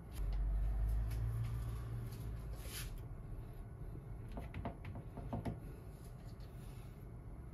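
Kitchen handling sounds at a stainless steel counter. A low rumble of handling first, then a brief scrape, then several light clicks and taps as a bamboo-skewered grilled leek is set onto a rice bowl.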